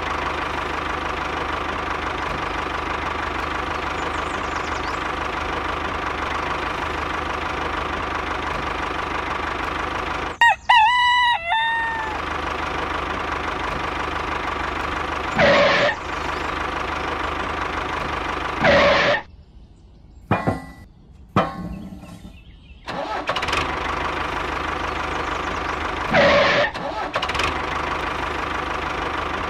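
Tractor engine running steadily, dropping out for a few seconds about twenty seconds in, with a few brief louder bursts. A rooster crows once about ten seconds in.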